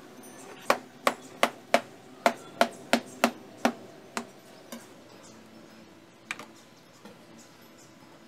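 Kitchen knife chopping papaya on a plastic cutting board: about ten sharp knocks at roughly three a second, then a few scattered taps.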